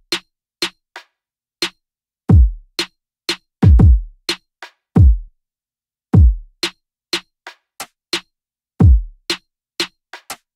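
Trap-style drum-machine beat playing back in FL Studio: deep bass-drum hits that each slide down in pitch, at uneven spacing, with short sharp percussion hits between them. No melody is heard, only drums.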